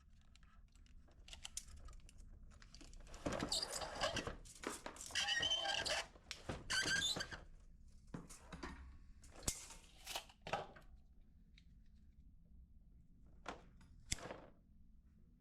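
Hands working with a brake hose and tools on a bench: a few seconds of rustling, scraping noise, then several sharp clicks and knocks.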